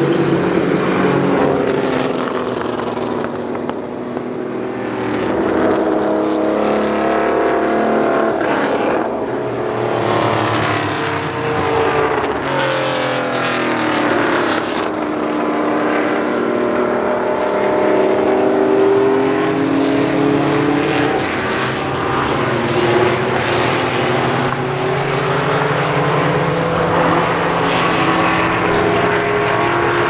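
Several classic Porsche 911 race cars' air-cooled flat-six engines running together, their overlapping pitches rising and falling as the cars accelerate out of a bend and pull away.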